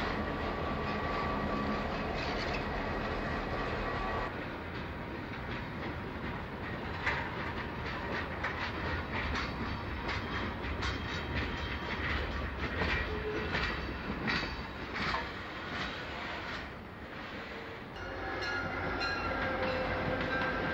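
A diesel freight train passing close by. A diesel locomotive engine runs steadily at first. After an abrupt change about four seconds in, freight cars roll past with their wheels clacking over rail joints and brief squeals. About eighteen seconds in, the sound changes abruptly again to another diesel locomotive running past.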